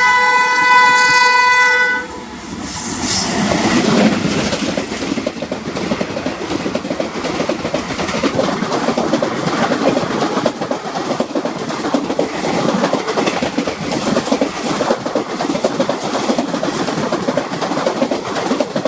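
WAP-7 electric locomotive's horn sounding a steady blast that cuts off about two seconds in. The train then rushes past, and the express's coaches rattle by, their wheels clattering steadily over the rail joints.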